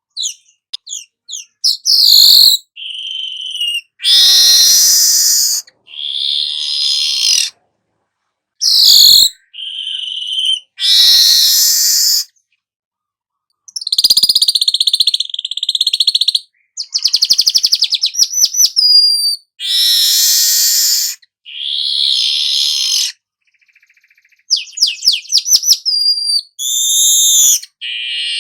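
Golden-headed weaver (manyar kepala emas) song: a string of short, high-pitched phrases with silent gaps between them. The phrases mix quick down-slurred notes, harsh buzzy chatters and fast rattling trills.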